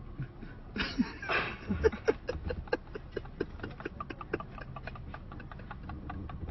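Bicycle clattering and clicking as it is handled and dropped: a couple of short scraping bursts about a second in, then a quick run of sharp irregular clicks for a few seconds.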